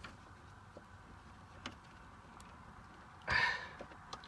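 Handling noises of a wire connector being worked back onto a toggle switch terminal: a few faint clicks and one short, louder scraping rustle about three seconds in.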